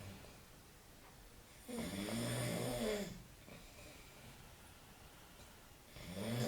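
A sleeping man snoring. One snore of just over a second comes about two seconds in, and the next begins near the end, with quiet breathing between.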